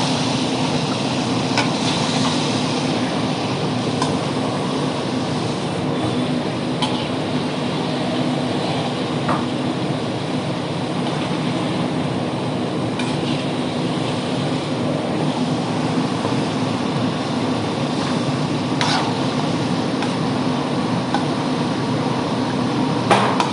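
Steady drone of a restaurant kitchen's ventilation and extractor fan, with a few faint clinks of kitchen utensils.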